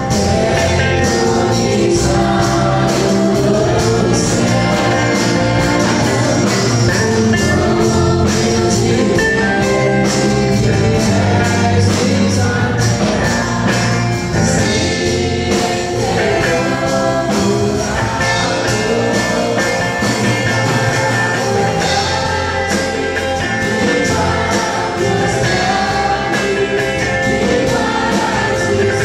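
Live gospel worship band: a woman leads a worship song in Portuguese with men singing backing, over electric guitar and drums keeping a steady beat.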